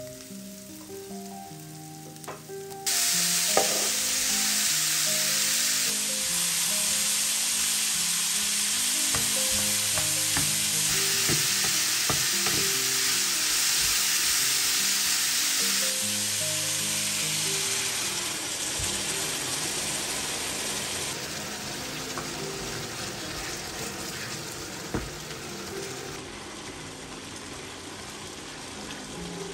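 Food frying in oil in a pan: a loud, dense sizzle that starts abruptly about three seconds in, changes level at several cuts and slowly eases towards the end, with a few light clicks of stirring. A soft instrumental melody plays underneath throughout.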